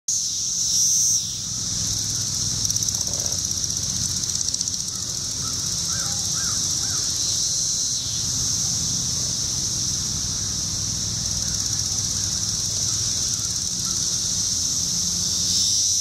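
Chorus of periodical cicadas: a steady, high-pitched drone that swells briefly about a second in and again near the end.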